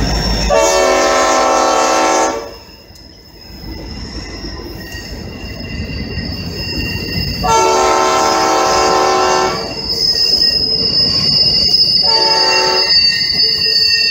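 Diesel freight locomotive air horn sounding two long blasts and one short one, the opening of the long-long-short-long grade-crossing signal. Under it a steady high wheel squeal and the rumble of freight cars rolling past on curved track carry on.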